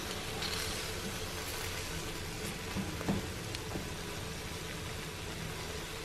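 Shrimp sizzling steadily in oil in a paella pan with frozen mixed vegetables, with a couple of faint spatula taps about halfway through.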